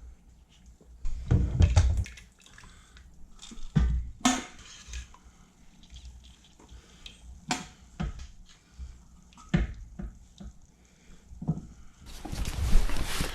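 Kitchen utensils and pot clattering: scattered knocks and clinks of metal against the pot, with a brief rush of noise near the end.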